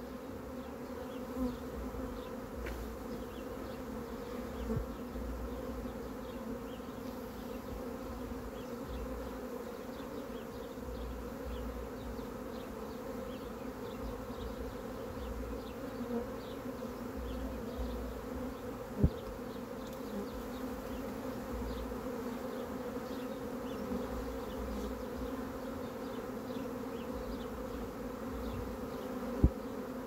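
Honey bee swarm buzzing steadily around the entrance of a nuc box, a continuous low hum with a higher overtone above it. Two sharp clicks break through, one about two-thirds of the way in and one near the end.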